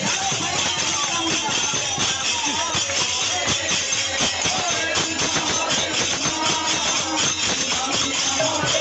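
Devotional nama-sankirtan music: voices chanting over percussion struck in a steady, continuous beat.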